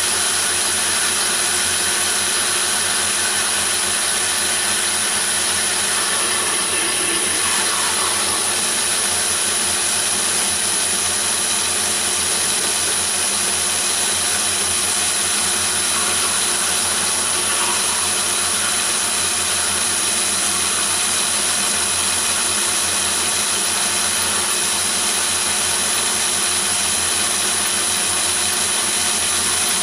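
Myford ML7 lathe running while a 22 mm carbide-tipped hole saw cuts into O1 tool steel: a steady machining noise with a constant high-pitched whine.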